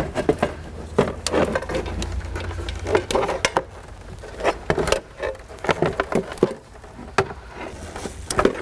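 Plastic dashboard trim on a GMT400 Chevy truck being pried loose and handled: an irregular run of clicks, knocks and rattles of hard plastic. Then rustling and light tapping as hands work among the wiring behind the dash.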